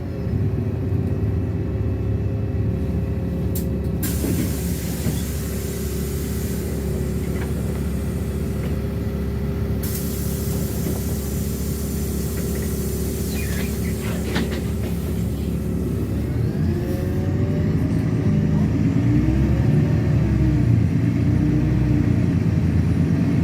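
Inside a LiAZ-6213.65 articulated city bus under way: the engine and drivetrain run with a steady low rumble and hum. A steady hiss of air runs for about six seconds early on. Near the end the engine note swings up and down several times and grows a little louder as the load changes.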